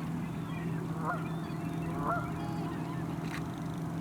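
A flock of geese honking, with many waterfowl calling over one another; two louder honks come about one and two seconds in. A steady low hum runs underneath.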